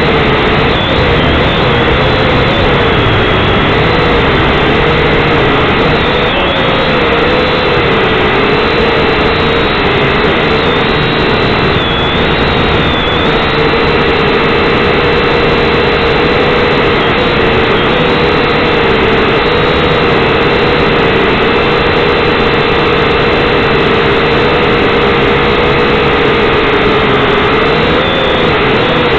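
Syma X5C quadcopter's small brushed motors and propellers whining loudly and steadily, heard from on board the drone, the pitch wavering slightly up and down as it flies.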